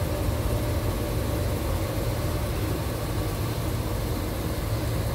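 Steady low rumble with a faint constant hum, from kitchen equipment running at the stove.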